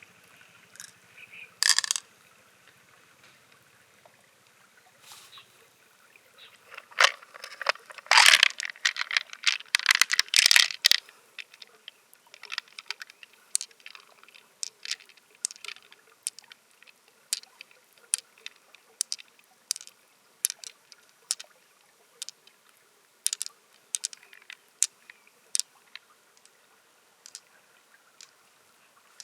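Wet shell-handling sounds from a large clam or mussel being worked open: sharp clicks and taps of shell and tool. A louder stretch of scraping and splashing comes about seven to eleven seconds in, followed by scattered clicks.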